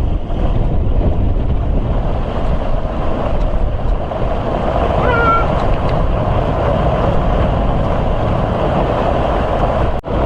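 Strong wind buffeting the microphone aboard a sailboat in a gale, with the rush of water. A brief high-pitched sound about halfway through.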